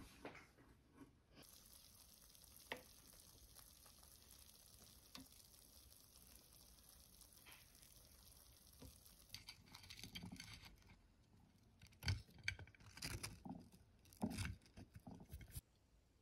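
Faint sizzling and crackling from chicken nuggets in an air fryer basket, with scattered clicks and a few louder knocks in the second half.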